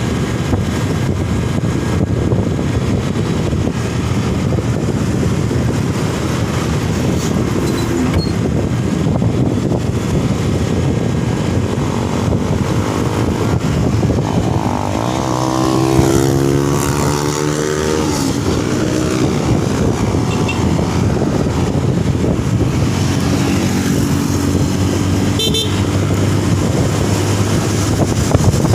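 Road traffic with a steady rumble and wind noise on the microphone. About halfway through a vehicle, likely a motorcycle, passes close by, its engine pitch falling as it goes away. A second engine is heard more faintly near the end.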